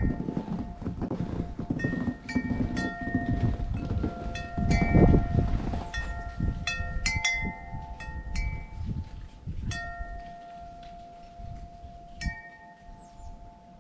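Wind chimes ringing, struck irregularly many times so that their clear ringing tones overlap and hang on, over a low rumble that dies away toward the end.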